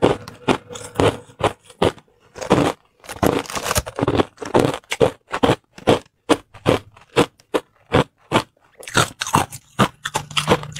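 Crushed white ice being chewed and crunched between the teeth, picked up close by a clip-on microphone: a quick run of sharp crunches with brief pauses.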